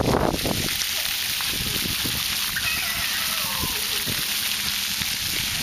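Splash-pad fountain jets spraying water onto the pavement, a steady hissing patter, with a short low thump right at the start.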